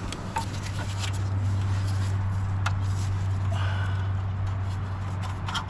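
Small clicks and scrapes of a spark plug wire being worked around an exhaust manifold by hand, over a steady low hum.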